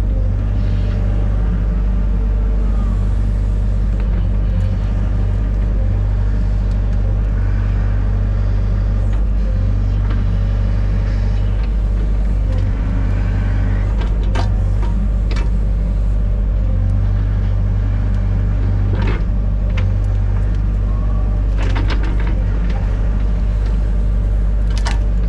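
Excavator's diesel engine running steadily under load, with a few sharp knocks and cracks in the second half.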